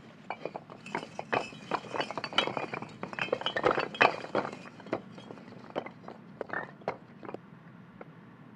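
Loose bricks and rubble clinking and clattering as someone scrambles across a pile of collapsed brickwork. The clatter is densest in the first few seconds, thins out, and stops about seven seconds in.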